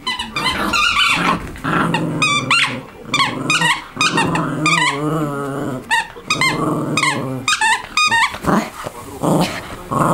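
Prague ratter growling in play while it chews and shakes a red fabric toy, a run of repeated growls.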